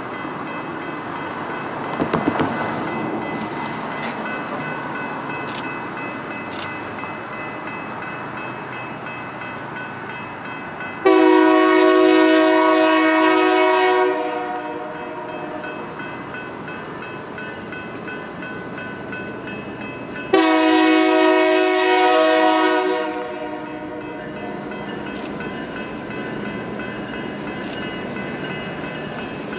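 Railroad locomotive air horn sounding two long blasts of several notes at once, each about three seconds, over the steady rumble of a passing train. A few sharp clicks come from the rails in the first several seconds.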